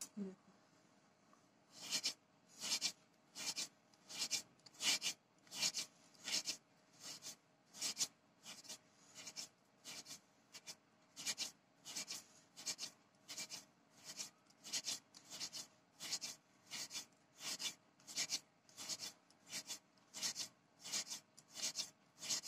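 Palm rubbing small pieces of rice-flour dough against a floured wooden board, a quick rasping stroke repeated about twice a second, each stroke rolling out one small chushi pitha. The strokes begin about two seconds in.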